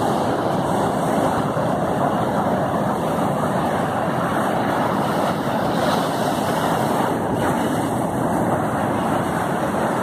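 Waves of a rough sea breaking and washing over a rocky shore, a steady surf noise without pauses.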